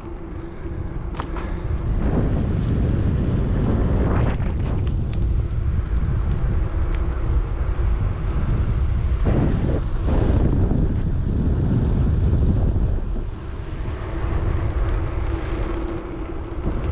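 Wind buffeting the GoPro Hero 9's built-in microphone, which has no windscreen, on a moving bicycle: a loud, steady low rumble that swells in gusts.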